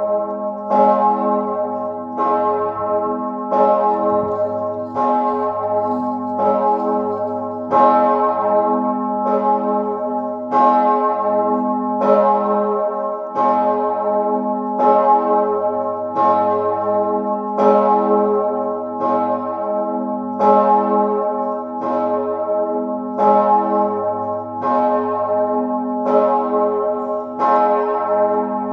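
The 4,820 kg Mauritius bell, cast by Perner of Passau in 2003, swinging alone and tolling on A-flat, its clapper striking about three times every four seconds over a long ringing hum. This is the Sterbestundenläuten, the bell rung for the hour of death.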